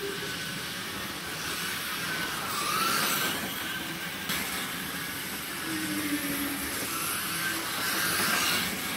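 Electric slot cars running on a slot car track: a steady hiss with motor whine, and a car passing close about three seconds in and again near the end, its whine swelling and bending in pitch.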